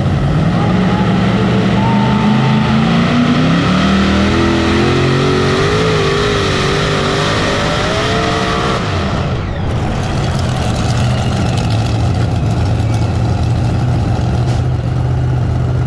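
Light modified pulling tractor's engine running hard, its pitch climbing over the first several seconds as it revs up under load. About nine seconds in the revs drop sharply, and it runs on steadily at a lower pitch.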